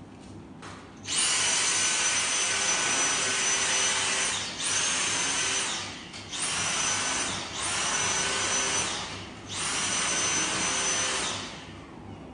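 Vacuum cleaner motor switching on about a second in with a steady high whine over a loud rush of air. It runs in several spells, dropping out or dipping briefly four times, and cuts off near the end.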